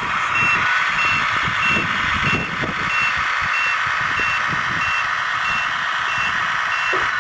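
A high electronic beep repeating evenly about one and a half times a second, over loud continuous rumbling noise.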